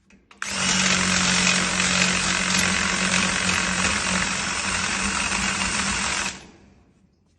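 Power drill running steadily with a bit cutting into a door to open up the hole for a new lock, starting about half a second in and stopping near the end.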